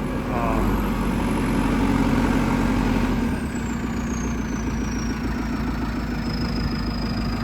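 JCB 3CX backhoe loader's diesel engine idling steadily, a little louder for the first three seconds before settling back, with a faint high whine falling slowly in pitch after that.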